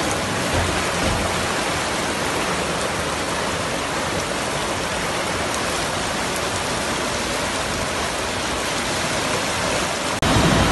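Floodwater rushing down a street after heavy rain: a steady, loud rush of water. Just after ten seconds the sound drops out for an instant, then returns louder with more low rumble.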